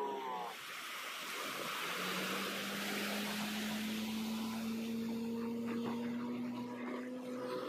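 Speedboat engine running at a steady note, which settles in about two seconds in, over a hiss of surf and moving water.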